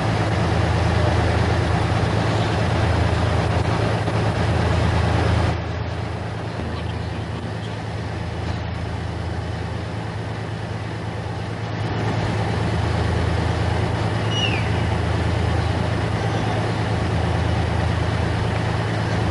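Heavy diesel engine of a tank running, a steady low drone that drops quieter for about six seconds midway and then picks up again.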